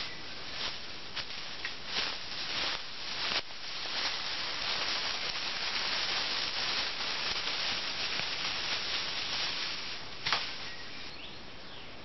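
Crunching steps through ivy and dry leaf litter, then a long leafy branch dragged over the forest floor, a continuous rustling scrape lasting about six seconds. A sharp crack near the end of the drag.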